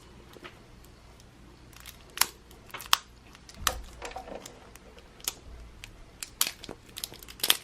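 Toy packaging being handled and opened by hand: scattered clicks, taps and brief crinkles, a few sharper ones spread through.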